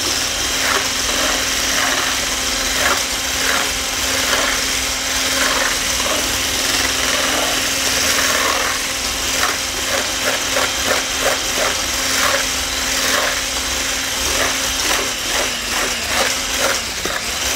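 Electric hand mixer running steadily, its whisk beating cream in a metal bowl, with a constant motor hum and irregular scraping and clattering of the whisk against the bowl. The cream is almost fully whipped to stiff peaks.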